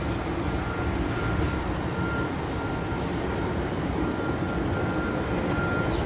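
Steady low rumble of wind buffeting the microphone, with a faint thin high tone that comes and goes.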